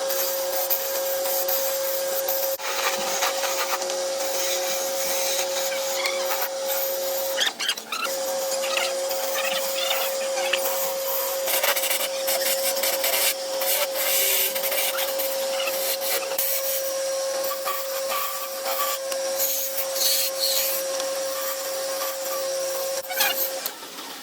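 Wood lathe running with a steady hum while a hand tool scrapes the spinning palm wood. The hum breaks off briefly about eight seconds in and stops shortly before the end.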